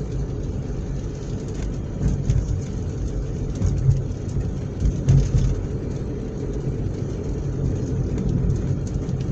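Car engine and road noise heard from inside a moving car: a steady low rumble with a few light clicks and knocks.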